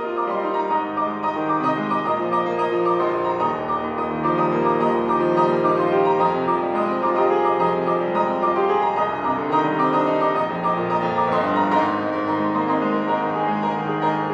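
Solo grand piano played continuously: a steady flow of overlapping notes and held chords, without a pause.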